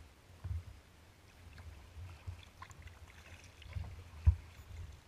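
Kayak being paddled: faint splashes and drips of water from the paddle, with low dull knocks every second or so and one sharper knock about four seconds in.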